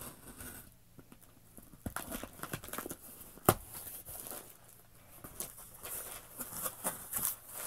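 A cardboard box being opened by hand: packing tape picked at and pulled free, then the flaps pulled open, giving scattered scrapes and rustles. One sharp snap about three and a half seconds in is the loudest sound, and a run of crackly rustling comes near the end.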